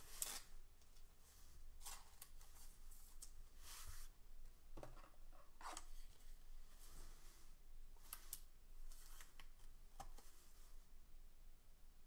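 Faint rustling and light clicks of a trading card being handled, a few short scrapes scattered through.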